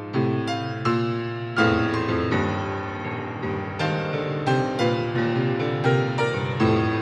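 Solo piano playing a slow, gentle piece: struck chords and melody notes that ring and fade, a new note or chord about every half second to a second.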